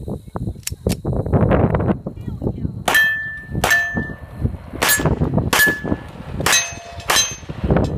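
Pistol fired six times in three quick pairs, each pair's shots about two-thirds of a second apart. Most shots are followed by a short metallic ring of a steel target being hit.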